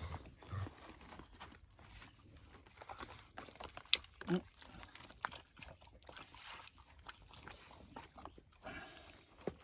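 Dog snuffling and moving about in leaf litter while taking a scrap from a hand: scattered rustles and clicks, with a sharp click and a short low dog sound about four seconds in.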